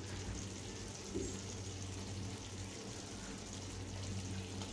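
Brinjal-and-potato gravy simmering in a kadai, a faint steady sizzle over a low steady hum.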